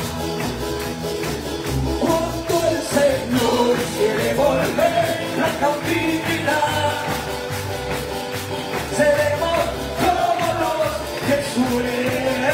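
Live church band playing an upbeat worship song with a lead singer, electric guitar and percussion, the congregation clapping along in rhythm.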